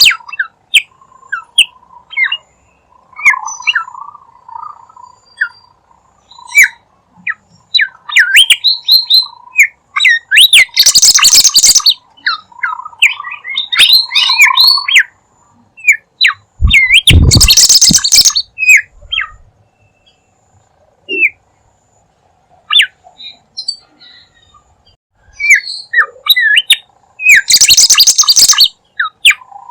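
Bimoli bird lure call: rapid short, sharp chirps, broken three times by a loud, harsh burst.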